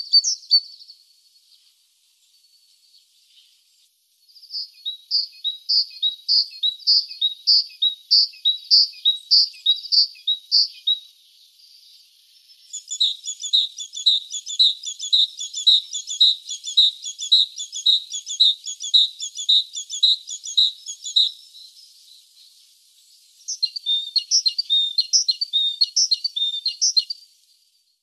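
Great tit singing: several bouts of quickly repeated high, clear notes, each bout lasting a few seconds, with short pauses between.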